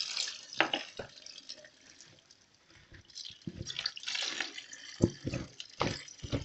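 Salty pickling brine poured into a large glass jar of onions, the liquid splashing and gurgling in unevenly, with a few sharp knocks and clinks against the jar, the loudest about five seconds in.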